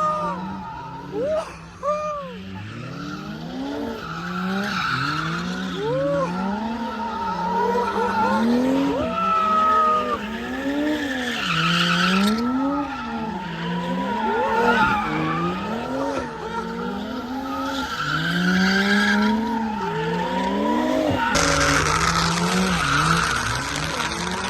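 Cars drifting: an engine revs up and down again and again as the driver works the throttle, over continuous tyre squeal and skidding. Near the end the tyre noise turns suddenly louder and harsher.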